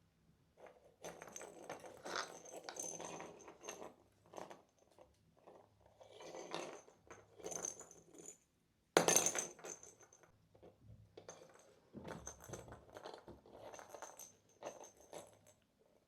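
Kittens batting and pouncing on small toys: irregular rattling and clinking in short flurries, with a sharper, louder clatter about nine seconds in.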